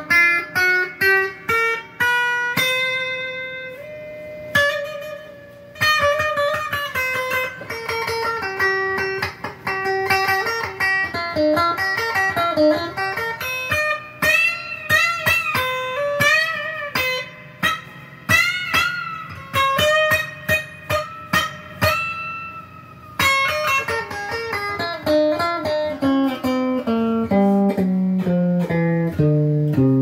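Squier Debut Series Stratocaster electric guitar played through an amp, running single-note lead lines. Around the middle the lines carry string bends and vibrato, and near the end there is a descending run of notes.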